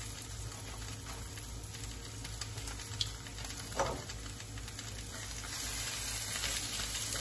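Food frying in olive oil in a pan on the stove: a steady sizzle that grows a little brighter and louder about five and a half seconds in.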